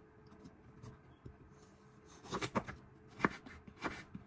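Chef's knife slicing a carrot into rounds on a wooden cutting board. It is quiet at first, then from about halfway there are several sharp knocks as the blade cuts through and strikes the board.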